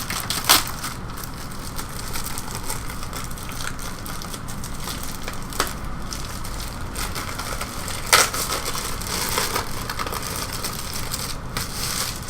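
Packaging around a comic book crinkling and crackling as it is handled and unwrapped, with a few sharp louder crackles: one about half a second in, one near the middle and one about two-thirds of the way through.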